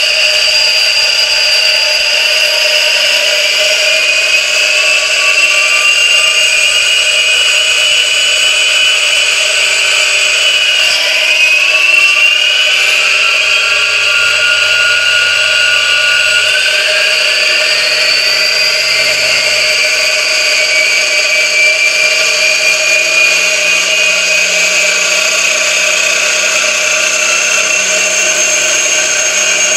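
A train of 3D-printed plastic gears spinning at tens of thousands of rpm in a water-filled sealed housing: a loud, steady, high-pitched whine made of several tones at once, mixed with water churning. The pitch creeps slowly upward as the drive is turned up.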